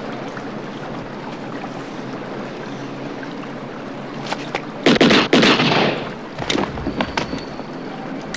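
Gunfire on a film soundtrack: a quick cluster of loud, close-together shots about five seconds in, with a ringing tail, then a few smaller sharp reports and clicks over a steady background hiss.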